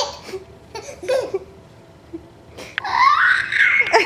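Short infant giggles, then a sharp thumb-and-mouth pop about two and a half seconds in, followed at once by a six-month-old baby's long, high squealing laugh that rises in pitch.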